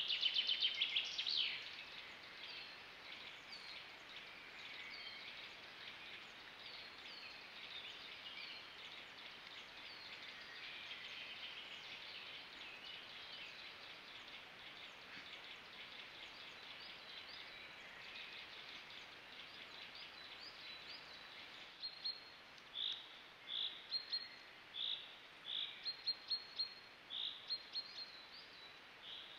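Woodland birds singing, many short high notes overlapping. A loud rapid trill comes at the very start, and in the last third one bird repeats short loud notes about once a second.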